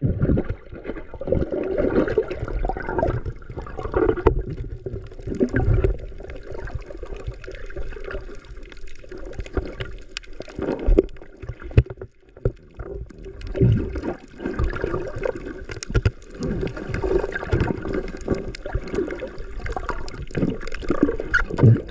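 Water sloshing and gurgling close to the microphone, with irregular low thumps and knocks throughout.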